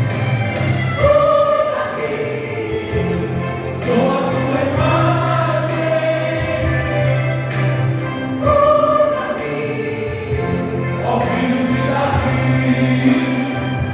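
Gospel vocal group singing a Christian worship song in harmony, with instrumental accompaniment underneath; the voices hold long notes.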